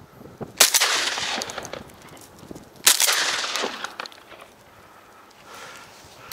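Two shotgun shots fired at rising ducks, a little over two seconds apart. Each is a sharp crack followed by a rumbling tail that dies away over about a second.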